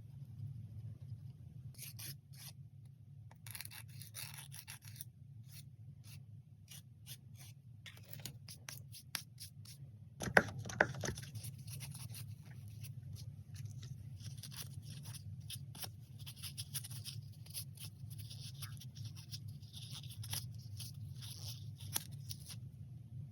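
Short, irregular scraping and rubbing strokes of a manicure tool on fingernails over a steady low hum, with two sharp knocks about ten seconds in.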